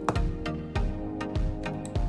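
Background music with a steady beat over sustained notes.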